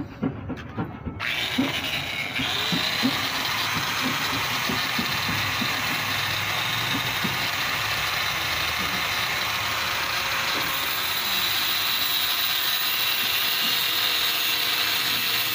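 Handheld angle grinder working metal on a motorcycle frame: a few knocks of handling in the first second, then the grinder starts and grinds steadily.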